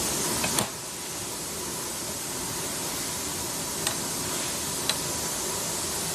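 A steady hiss, with a couple of sharp clicks about half a second in and two faint ticks later on.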